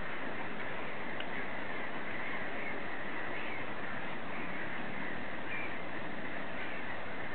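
Steady outdoor background noise with a few short, faint bird calls over it.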